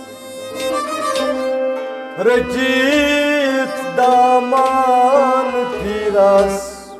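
Kashmiri folk ensemble playing an instrumental passage: harmonium and a bowed sarangi carry the melody, with a plucked rabab and low beats struck on a noot clay pot.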